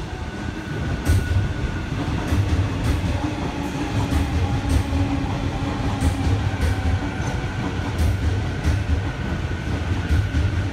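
Electric passenger train running along the tracks close by, with a heavy rumble and its wheels clacking over rail joints several times, over a steady hum.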